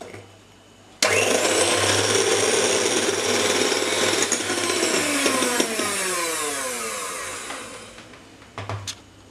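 Electric hand mixer switched on about a second in, its beaters whirring through a runny egg-and-milk batter in a glass bowl. In the second half its pitch falls away as it winds down and stops, and a couple of short knocks follow near the end.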